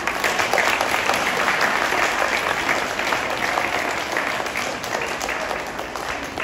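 An audience applauding, starting suddenly and slowly dying down near the end.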